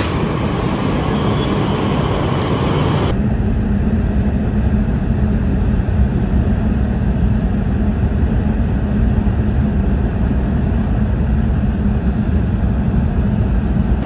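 Steady rumbling road or rail noise of a vehicle in motion, with no clear engine note; about three seconds in the sound cuts abruptly to a duller rumble without the upper hiss.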